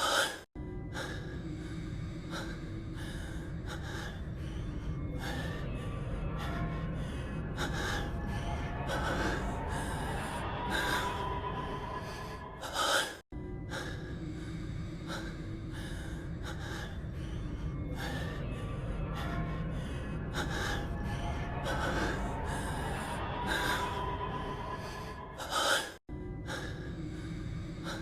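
A man's voice-acted heavy breathing and gasps over quiet background music. It is a short clip that loops about every 13 seconds, with a brief dropout each time it restarts.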